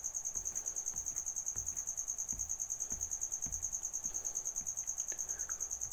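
Insect chirping: a steady, high-pitched pulsing trill at about eight pulses a second, with a few faint low knocks.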